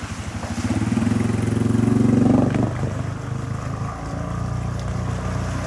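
ATV engine revving as the quad churns through creek water. The revs build and are loudest about two and a half seconds in, then ease to a steady run, with water splashing around the wheels.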